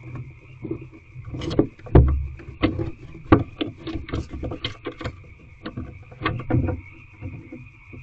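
Barn owl shifting about in its nest box right against the camera: a run of scrapes, knocks and rustles as its feathers brush the camera and its feet shuffle in the wood shavings, with heavy thumps about two seconds in and again past three seconds.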